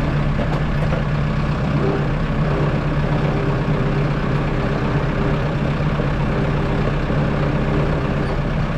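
Kubota M6060 tractor's four-cylinder diesel engine running steadily at a constant speed. A faint, higher steady whine joins about two seconds in and drops away near the end.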